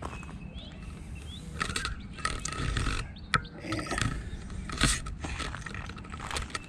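Footsteps crunching and scuffing over loose brick rubble and wooden debris, irregular, with a sharp knock about halfway through.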